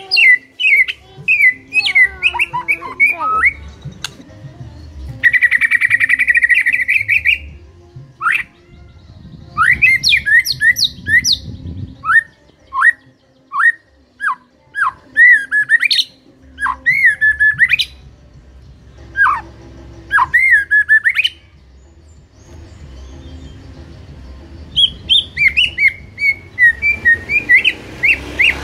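White-rumped shama singing loudly: phrases of clear whistled notes and sharp sweeping calls, with a buzzy rattle about five seconds in. The song breaks off for a few seconds past twenty seconds, then resumes as a fast run of notes near the end.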